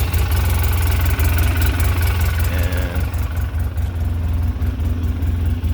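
Polaris Ranger 6x6's 800 cc twin-cylinder engine idling steadily.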